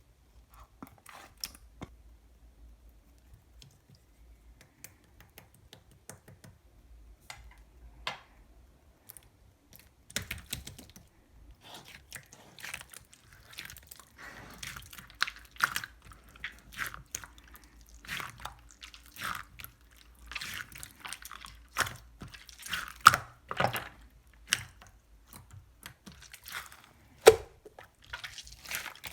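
Slime being squished, stretched and pressed by hand, giving sticky wet pops and crackling clicks. The pops are sparse at first and grow busier and louder from about ten seconds in.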